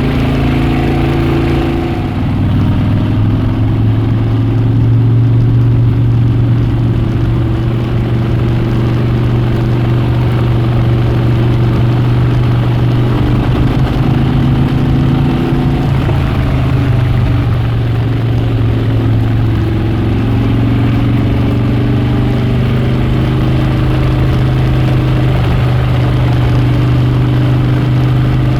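Harley-Davidson Dyna Switchback's V-twin engine and exhaust running steadily, with its pitch shifting a little as the throttle changes. The sound dips briefly about two seconds in, then runs a little louder.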